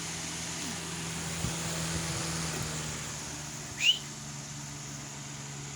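Hunter table fan running on medium speed: a steady motor hum with the even rush of air from the blades. About four seconds in there is one short, high, rising squeak.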